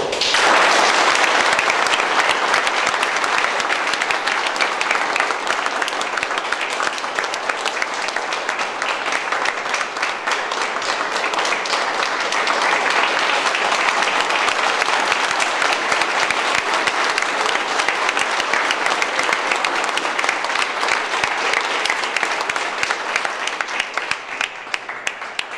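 A small crowd of people applauding: dense hand clapping that starts abruptly, carries on steadily, and thins out near the end.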